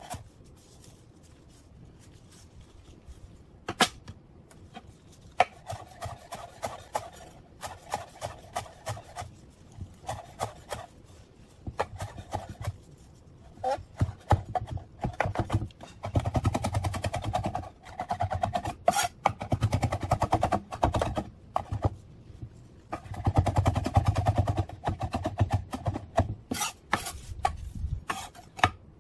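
Kitchen knife chopping cilantro on a wooden cutting board, the blade knocking the wood. There are scattered single chops at first, then two runs of fast, rapid chopping in the second half.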